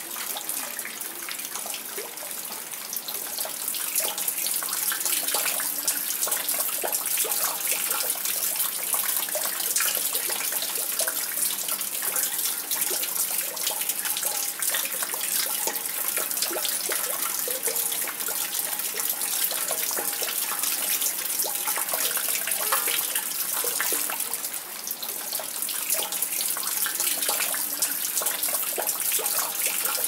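Water dripping into a well: many drops falling in quick succession over a steady splashing hiss of water.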